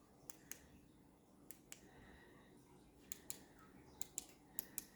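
Small plastic button clicks, mostly in pairs, repeated several times: the colour button on a ring light being pressed to cycle through its colours.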